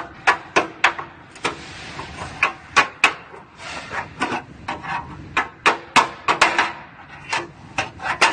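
Irregular sharp taps and clicks of a thin steel hand tool knocking and scraping against a car's sheet-metal inner fender and radiator support, about two to three a second.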